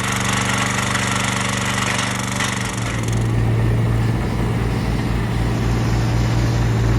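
Small gasoline engine running steadily. About three seconds in the high hiss drops away and a low, regular pulse of the engine comes to the fore.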